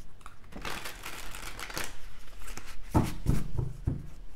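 Tarot cards being shuffled by hand: a stretch of papery rustling as the cards slide through the deck, then a few short taps in the later part.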